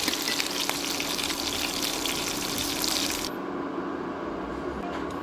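Fish pieces frying in hot oil in a steel pan: a dense sizzle with many fine crackles. About three seconds in it cuts off abruptly to a quieter, duller sizzle of hot oil.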